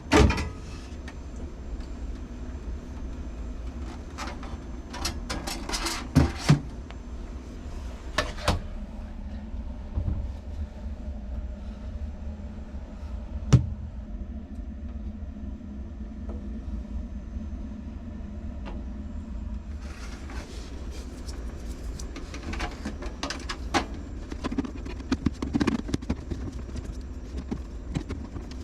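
Scattered knocks and clicks of objects being handled, a single loud knock about halfway, over a steady low hum.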